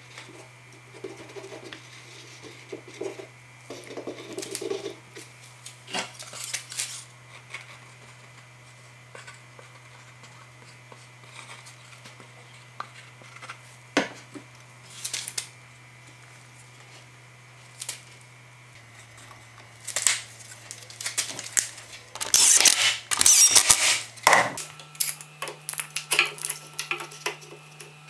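Workshop handling sounds as a glued slatted frame is put together: scattered wooden knocks as the slats are fitted, then a loud cluster of metal clatters and rattles from steel bar clamps being slid on and tightened, over a steady low hum.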